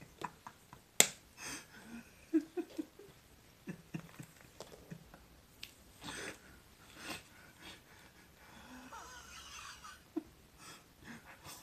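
A man laughing almost without voice, in short breathy hisses and puffs with a few faint squeaks, broken by scattered sharp clicks; a click about a second in is the loudest sound.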